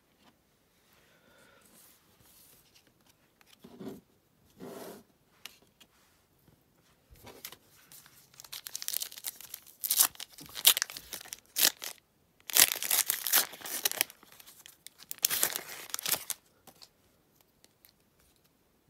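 A plastic Topps Match Attax trading-card pack being torn open by hand, the wrapper tearing and crinkling in several loud bursts through the second half. Softer rustles come before.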